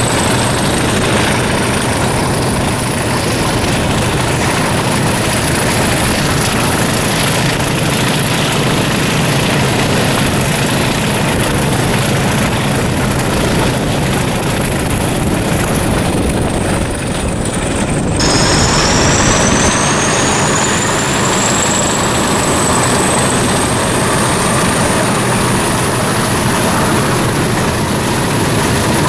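Diesel locomotive engine working hard under power, with a high turbocharger whistle over the engine noise. The whistle drops suddenly about two-thirds of the way through, then climbs back up.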